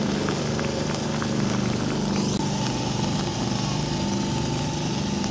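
An engine running steadily at a constant speed, a low even drone. A faint high steady tone joins about halfway through.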